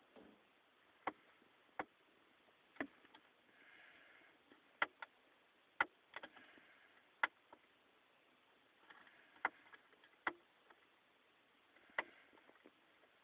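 Sharp clicks of buttons being pressed on a car LCD multimedia unit while its menus are stepped through: about a dozen presses at irregular intervals, with faint rustling between some of them.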